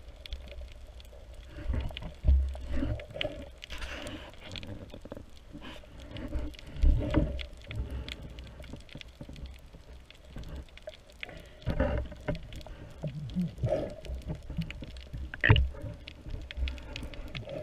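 Muffled underwater sound heard through a camera's waterproof housing: a steady wash of moving water with several irregular low thumps and a few sharper knocks.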